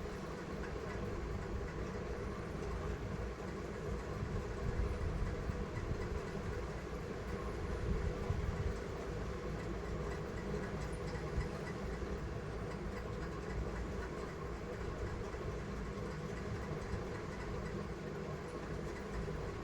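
Jet pump (portable pressure washer) motor running steadily with a hum, spraying water for washing the AC grills.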